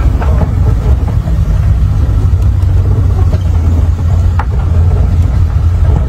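Engine and road noise of a moving car, heard from inside it: a loud, steady low rumble, with a short click about four seconds in.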